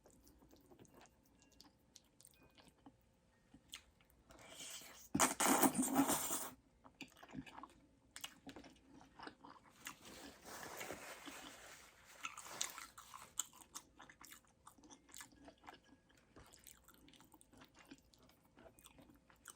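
Close-miked chewing of creamy pasta, bacon and garlic bread: wet clicks and crunches, with a loud noisy burst about five seconds in lasting over a second and another noisy stretch a few seconds later.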